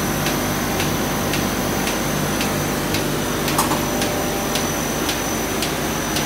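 Great Wall 1270 CTR paper sheeter running steadily: a continuous machine hum with a steady high whine and a regular tick about twice a second.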